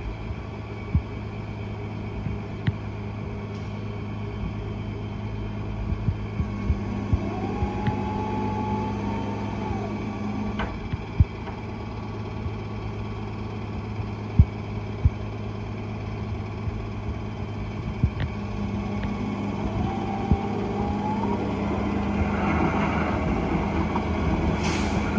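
Flatbed tow truck's engine running steadily while its winch pulls a car up the tilted bed. A whine rises, holds for a few seconds and drops away twice, over scattered clanks and knocks.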